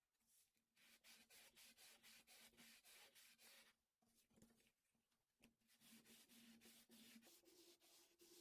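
Faint, quick back-and-forth scratching strokes on paper or cardstock, about four or five a second, in two runs with a short pause between.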